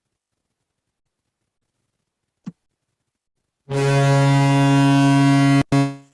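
A single click, then about two-thirds of the way in a recording of the Toronto Maple Leafs goal horn starts: a loud, steady, deep horn blast over a rushing noise. It cuts off abruptly, comes back for a moment and fades out.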